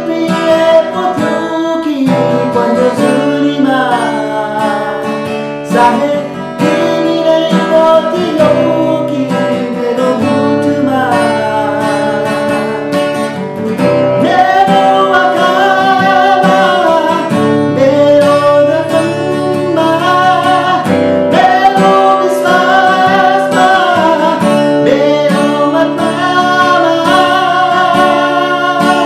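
A man singing a Nepali song in full voice, with long held notes, over his own strummed acoustic guitar.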